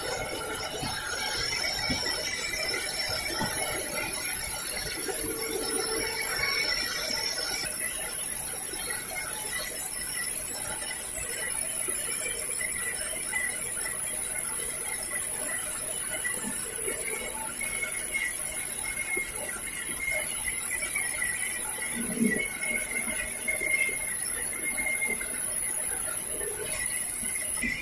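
Large sawmill bandsaw running and cutting log slabs lengthwise into planks: a steady high whine over a continuous rasp, with the high whine shifting up in pitch about eight seconds in.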